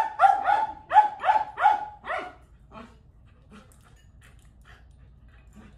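A Shetland sheepdog barking: about seven quick, sharp barks in the first two seconds, then it stops, leaving only faint light clicks and ticks.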